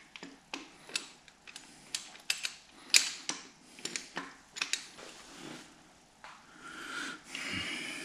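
Irregular sharp metallic clicks and taps as a Jaguar E-Type engine's double-row timing chain and its fixing bolts are handled and lined up against the engine block. Near the end comes a long breathy huff.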